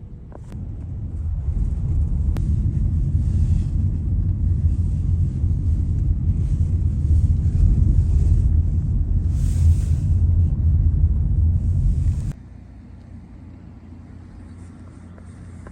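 Wind buffeting the phone's microphone in gusts, a heavy rough rumble with swells of rushing hiss, cutting off abruptly about twelve seconds in.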